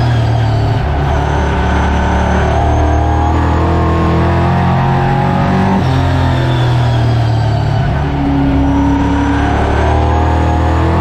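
V8 engine of a Late Model oval race car heard from inside the cockpit at racing speed. Its pitch climbs twice as it accelerates and drops back in between, as the driver lifts and gets back on the throttle around the track.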